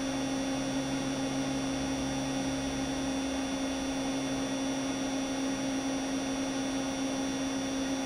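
Steady electrical hum from a powered car-audio amplifier test bench: one constant low tone with fainter higher tones above it, and a lower layer that fades out about three seconds in.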